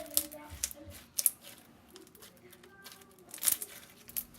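Slime and its plastic container being handled: a few short crackling clicks and pops.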